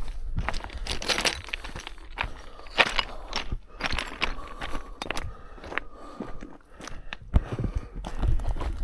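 Footsteps crunching on a rocky, gravelly mountain trail at an uneven pace, with wind rumbling on the microphone, stronger near the end.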